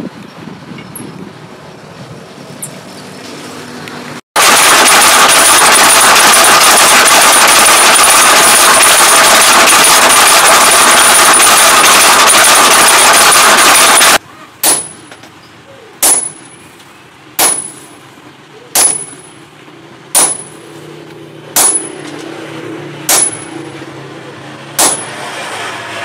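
A motor-driven power hammer pounds red-hot steel: about four seconds in, a very loud, rapid, continuous hammering with a high ring starts, lasts about ten seconds and cuts off abruptly. Then a hand hammer strikes the hot blade on the anvil at an even pace: eight ringing blows, about one every second and a half.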